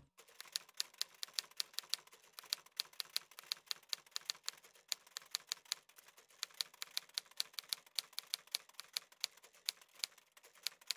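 Typewriter keystrokes: a rapid, uneven run of sharp key clicks, several a second, as text is typed out.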